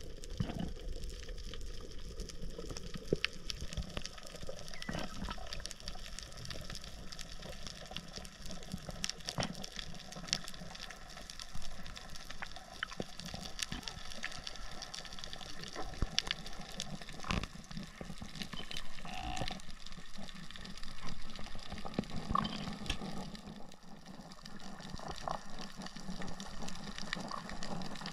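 Underwater sound on a coral reef, heard through an underwater camera: a steady wash of water noise with many scattered sharp clicks and crackles.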